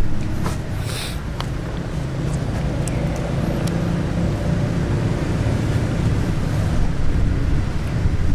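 Steady low rumble with a faint hum, with a few light clicks and a short hiss about a second in.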